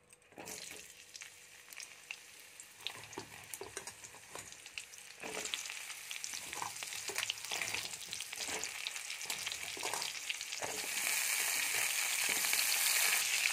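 Sliced pointed gourd (parwal) frying in hot mustard oil in a kadai, sizzling and crackling. It starts faint and builds, stepping up about five seconds in and loudest near the end.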